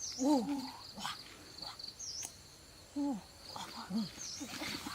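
Insects chirping in a steady, fast, even pulse, with a few short falling animal calls, the loudest about a third of a second in, and scattered light clicks.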